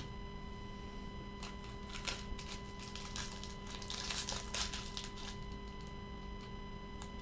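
Faint crinkling and rustling of a clear plastic card sleeve being handled, with a few light clicks, busiest around four seconds in.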